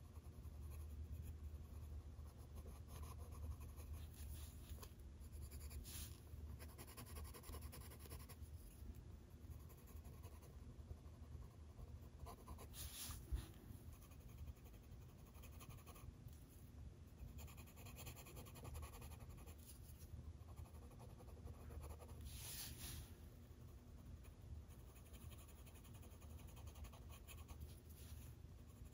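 Faint scratching of a coloured pencil shading on paper in soft repeated strokes, with three brief louder scrapes. A low hum runs underneath.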